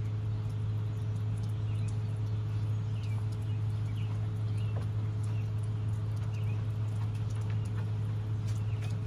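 A steady low hum, with faint bird chirps and scattered light taps from a dog moving about inside a wire kennel pen on a wooden deck.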